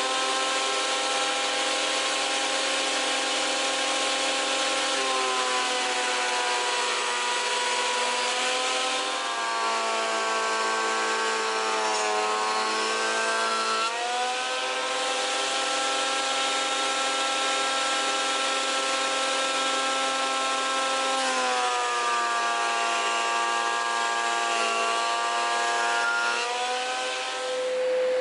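Woodster PT85 planer-thicknesser's 1250-watt motor and cutter block running with a steady whine. The pitch sags twice for several seconds and recovers, as timber is fed through and loads the cutter.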